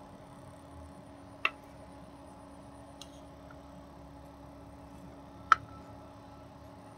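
A faint steady low tone from a subwoofer playing a frequency-sweep test tone, broken by two sharp clicks, one about a second and a half in and a louder one near the end.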